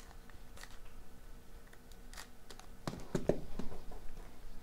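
A trading card sliding into a rigid clear plastic top loader: light scrapes and faint ticks of card and plastic, with a few sharper clicks about three seconds in.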